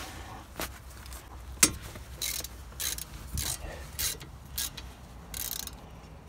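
Socket ratchet clicking as it loosens a brake caliper bolt. A sharp click comes about one and a half seconds in, then a run of short ratcheting strokes, roughly two a second.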